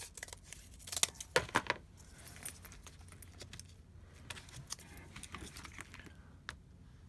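Cut cardboard pieces and small tools handled on a worktable: a quick cluster of sharp clicks and clatter about a second in, then light rustling and scattered ticks.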